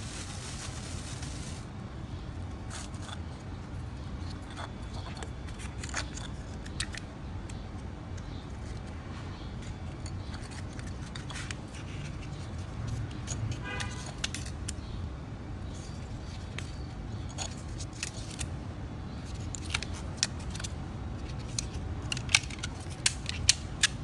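Scattered light clicks and clinks of small hard objects being handled, over a low steady hum, with a short hiss at the start. The clicks come thicker and louder in the last few seconds.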